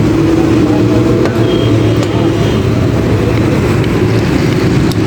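Steady engine hum and rumble of motor traffic, unbroken throughout, with a few faint light clicks over it.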